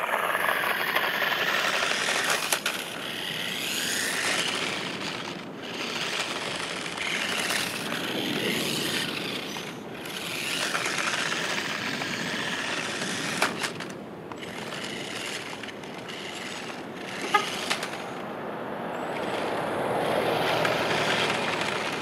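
New Bright remote-control Corvette Z06 toy car driving on rough asphalt: the small electric motor and the plastic tyres rolling over the road give a noisy hiss that rises and falls every few seconds as the car runs. There are a few short clicks along the way.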